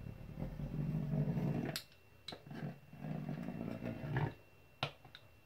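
Pastry cutter wheel rolled twice along a sheet of chebakia dough lying on the board, each stroke a low rumbling roll lasting about a second and a half, with a few light clicks between the strokes.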